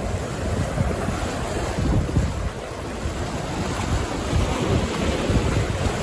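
Sea surf washing against the shore, with wind buffeting the microphone.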